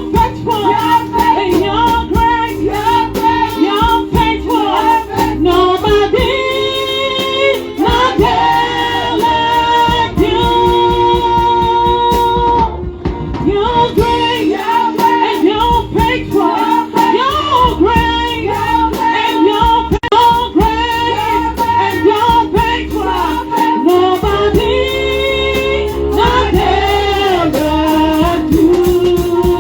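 Gospel worship music: a woman's voice singing over a band with bass and a steady drum beat.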